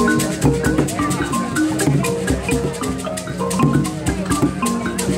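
Mbira music: plucked mbira notes in a repeating pattern over a steady beat of shakers.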